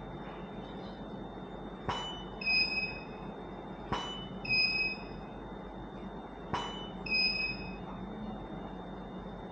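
Camera shutter firing three times, about two seconds apart, each shot followed half a second later by a short high beep from the studio flash signalling it has recharged and is ready.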